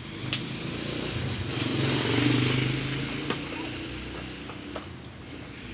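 A motor vehicle, likely a motorcycle, passing by: its engine hum grows louder to a peak about two seconds in, then fades away. A few sharp clicks are heard over it.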